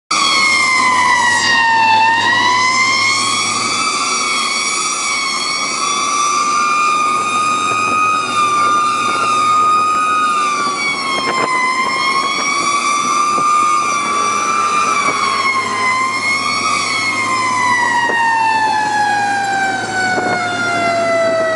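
Fire engine's siren wailing, heard from inside the cab, its pitch rising and falling unevenly, then winding steadily down near the end, over the low hum of the truck's engine.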